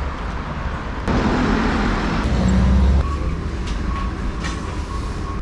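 Street traffic: a heavy road vehicle passes loudly for about two seconds. About three seconds in the sound cuts abruptly to quieter background with a faint steady whine and a few light clicks.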